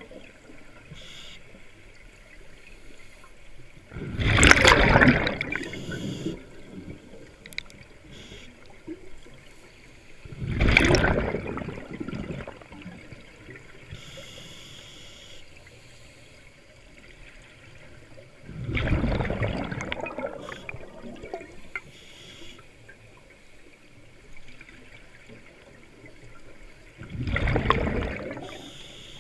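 Scuba diver's exhaled breath bubbling out of the regulator underwater, four loud rushes of bubbles about seven seconds apart, with a faint hiss between breaths.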